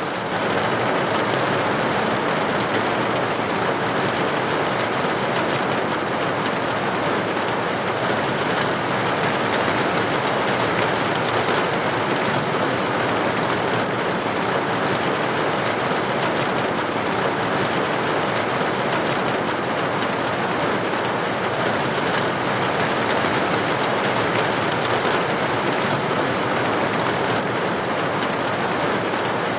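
Steady rain pattering on a window.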